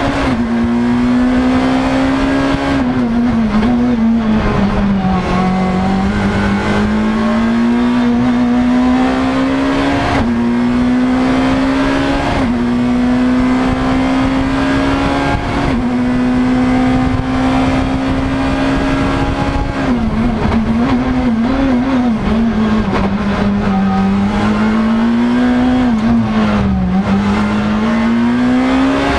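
Škoda Fabia S2000 rally car's 2.0-litre four-cylinder engine heard from inside the cockpit, held at high revs under full throttle with quick gear changes. The revs dip and waver as the car slows for bends a few seconds in and again after about twenty seconds, then climb back.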